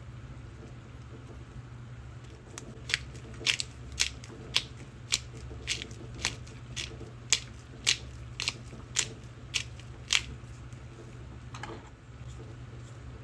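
A kitchen knife chopping on a cutting board: about fourteen sharp, crisp chops, roughly two a second, then one softer one, over a steady low hum.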